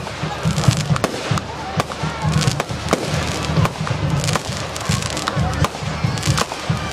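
Fireworks display going off: sharp bangs at irregular intervals, several a second, over continuous crackling.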